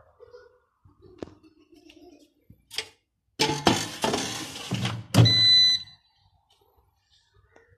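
Air fryer basket sliding into the air fryer with a loud plastic scraping and clatter about three and a half seconds in, closing with a thunk. A short electronic beep from the air fryer follows.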